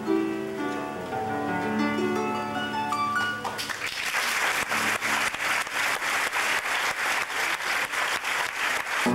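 Paraguayan harp played with plucked notes. About three and a half seconds in, the notes give way to fast, evenly timed hand clapping, and the harp comes back in right at the end.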